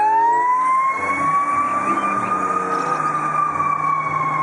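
Fire engine siren winding up in pitch over the first second, then holding and slowly falling, as the rig pulls out of the station.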